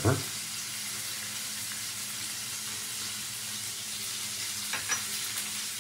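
Ribeye steak sizzling as it sears, a steady hiss, with a couple of light clicks near the end.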